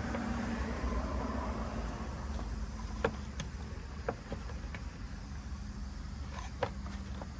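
Scattered plastic clicks and knocks as the stock air intake housing is wiggled and pulled upward to work it loose from its rubber mount, over a steady low hum.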